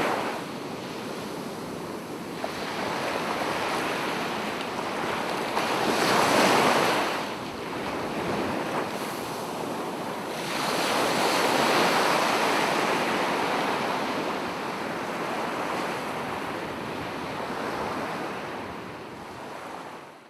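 Ocean surf: waves breaking and washing in, rising to a louder swell about a third of the way in and again just past halfway, then fading out at the very end.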